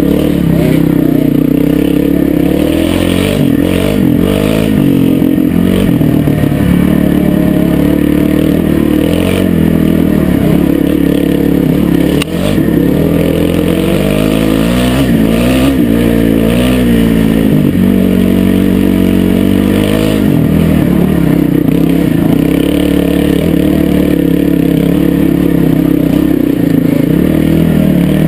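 Dirt bike engine running under riding load, its pitch rising and falling again and again as the throttle and gears change.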